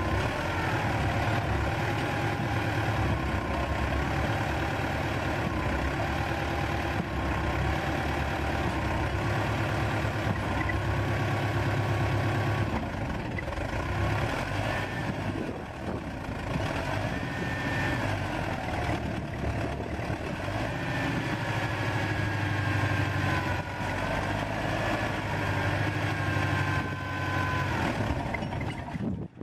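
Old wheeled tractor's engine running under load while the tractor is stuck in deep snow and its rear wheel spins in place, with a whine that rises and falls in pitch.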